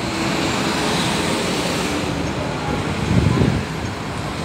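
Road traffic passing on the street below: a steady rush of tyres and engines with wind on the microphone, swelling louder briefly a little after three seconds as a vehicle goes by.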